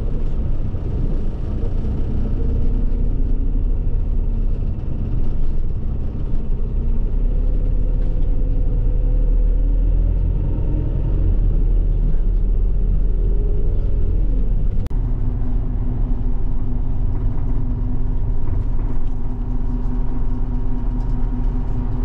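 Bus engine and road rumble heard from inside the moving cabin, steady and loud, with the engine note shifting in pitch a little past the middle.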